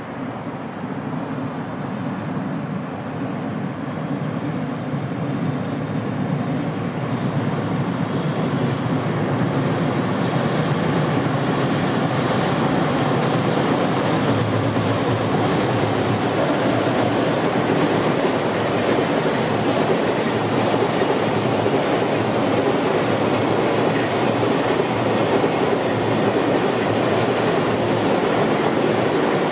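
Freight train hauled by a JR Freight EF210 electric locomotive crossing a steel girder bridge. The sound grows louder over the first dozen seconds as it approaches, then holds steady as the container wagons roll past.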